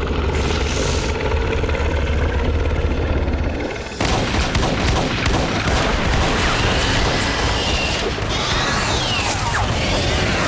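Movie sound effects. A deep, steady rumble gives way suddenly about four seconds in to a rapid barrage of handgun fire. Near the end, pitch-sweeping cries from a giant serpent monster are heard.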